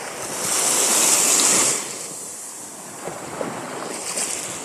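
Small Gulf of Mexico waves washing over the sand at the water's edge in a steady hiss. One wash swells about half a second in and dies away before two seconds.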